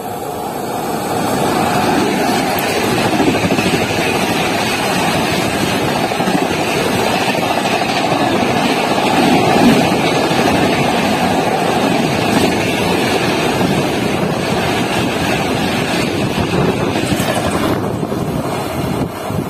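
Indian Railways express train hauled by an electric locomotive running through a station at speed: a loud, steady rush and rumble of coach wheels on rail and moving air. It builds over the first two seconds, holds, then falls away near the end as the last coaches go by.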